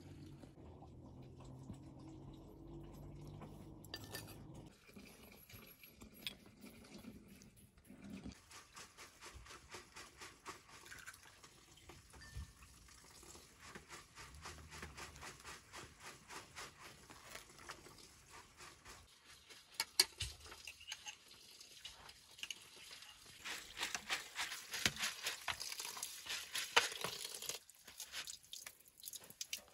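A spoon clinking and scraping in a bowl as ingredients are mixed, many small quick ticks. In the last third, a louder rush of tap water running over grain in a plastic colander, stopping shortly before the end.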